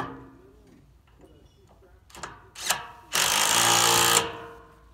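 A handheld power tool driving nuts on a pad-mounted transformer's terminal connections: two short spurts, then about a second of steady running before it stops abruptly. A metal clank right at the start.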